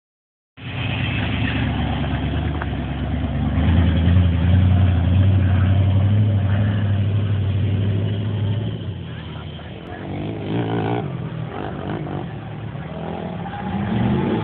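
Dodge Ramcharger's engine running under heavy throttle as the truck drives into deep muddy floodwater. It is loudest from about four to nine seconds in, then fades as the truck moves away.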